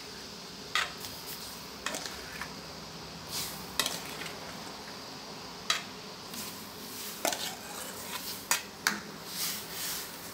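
Metal spoon clinking and scraping against a stainless steel bowl and wok, in sharp irregular clinks, as sliced bananas are pushed into boiling palm sugar syrup and stirred. A steady low hiss from the boiling syrup runs beneath.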